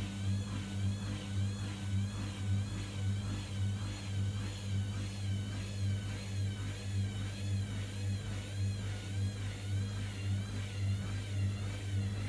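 Washing machine hose noise: a steady low hum with a warbling whine above it that rises and falls about twice a second.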